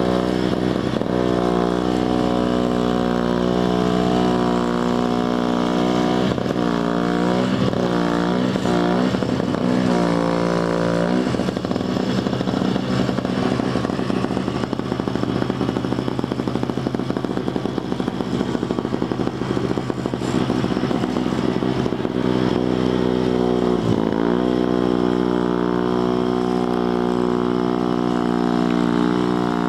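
Single-stage snow blower's small engine running steadily as it throws snow, its note dipping and wavering several times between about 6 and 11 seconds and dipping once more near 24 seconds.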